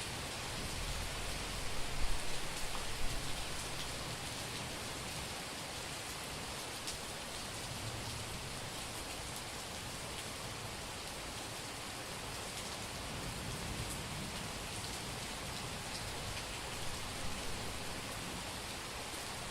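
Heavy summer rain falling steadily on a street: a dense, even hiss of drops hitting pavement. About two to three seconds in it swells briefly, with a low rumble.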